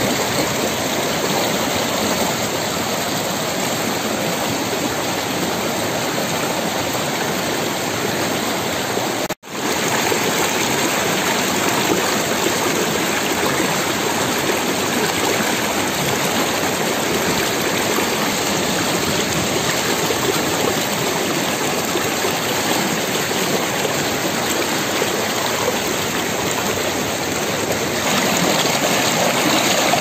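Shallow rocky stream rushing and splashing over stones in small rapids: a steady rush of water. It cuts out for an instant about nine seconds in, then resumes.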